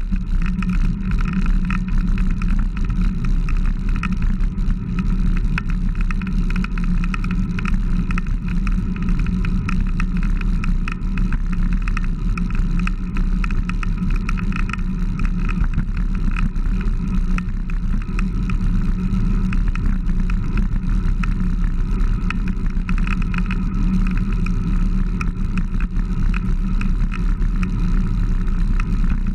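Steady wind rumble on a handlebar-mounted camera's microphone as a road bike rolls along, with tyre and road noise underneath.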